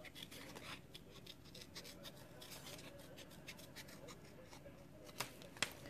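Scissors snipping around a small paper circle: a run of faint, quick cuts, with two louder snips near the end.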